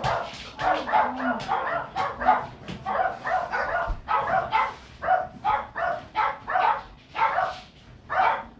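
A dog barking repeatedly in quick short barks, several a second, thinning out near the end.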